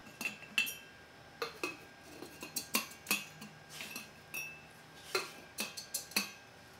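Light metallic clinks and taps, about a dozen at uneven intervals, some ringing briefly: piston rings being set into Superior aircraft cylinder bores and pushed down with a piston, metal on metal.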